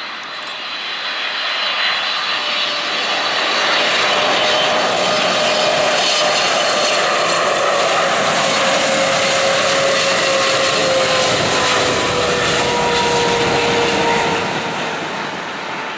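Boeing 777 freighter's twin GE90 turbofans on final approach. A steady jet rumble and hiss swells about two seconds in, holds loud, and fades near the end as the aircraft passes, with a faint tone slowly falling in pitch.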